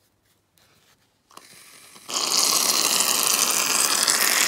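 Aerosol foam can spraying foam into a bowl: a steady, loud hissing and sputtering that starts about two seconds in, after a moment of near silence.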